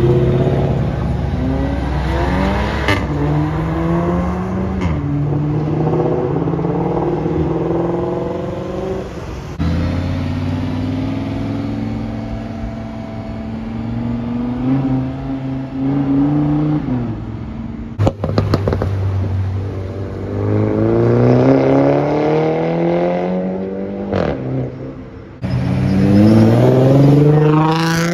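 Sports car engines accelerating hard one after another as the cars pull away, each rising in pitch, dropping at a gear change and climbing again. The cars include a Ford Mustang, an Audi R8 and a Nissan 350Z.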